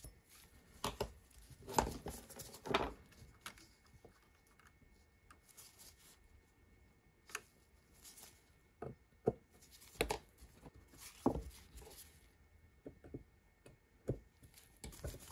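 Irregular small clicks, taps and short scrapes of hand work on a resin-printer vat frame: screws picked up and fitted, and the thin FEP film punctured with an X-Acto knife.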